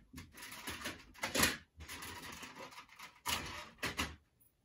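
Rummaging through plastic model railroad track pieces: rustling with quick clicks and clatter, and a few louder knocks about a second and a half in and again after three seconds, then it stops.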